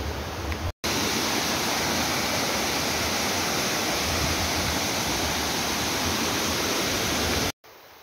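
A tall waterfall cascading down a rock face into a pool: a loud, steady rush of falling water. It starts suddenly about a second in and cuts off just before the end.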